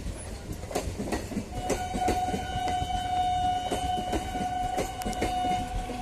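MEMU electric multiple-unit train passing, its wheels clattering rhythmically over the rail joints. About a second and a half in, the train's horn sounds one long steady note, which stops near the end.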